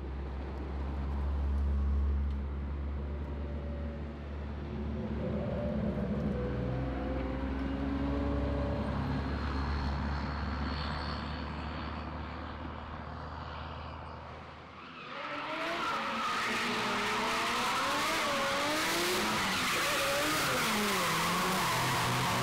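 Car engines running with a steady low drone, then, about two-thirds of the way in, drift cars sliding through a corner. Their engines rev up and down in rapid swings over loud tyre squeal.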